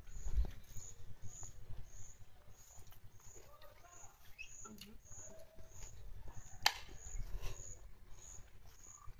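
A cricket chirping steadily, a short high chirp about twice a second. There is a low bump near the start and a single sharp click about seven seconds in.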